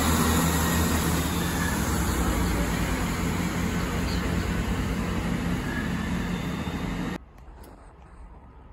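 Chiltern Railways Class 165 diesel multiple unit running past with a steady engine hum and wheel noise, slowly getting quieter as it moves away. About seven seconds in the sound cuts off suddenly to quiet station background.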